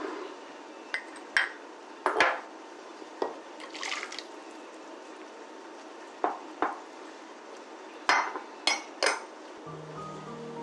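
Dishes and utensils being handled: a string of separate clinks and knocks, with a short liquid-like sound about four seconds in. Soft background music comes in near the end.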